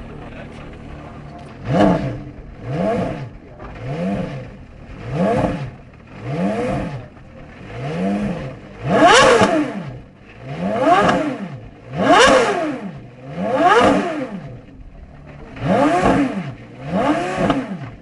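Porsche Carrera GT's 5.7-litre V10 idling, then blipped about a dozen times from about two seconds in, roughly one rev a second. Each rev is a quick rise and fall in pitch through the twin exhausts.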